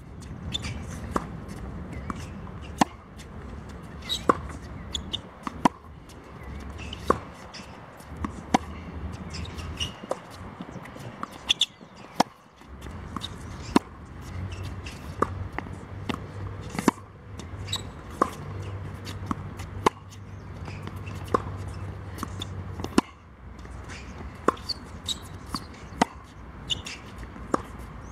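Tennis ball being struck by a racket and bouncing on a hard court during a baseline rally: sharp pops, the loudest about every one and a half seconds, with fainter bounces between.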